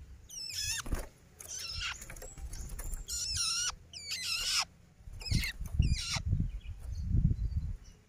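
A young long-tailed shrike (cendet), about two months old, calls in five harsh, wavering bursts about a second apart, each falling in pitch. These are typical begging calls of a fledgling that still asks to be fed.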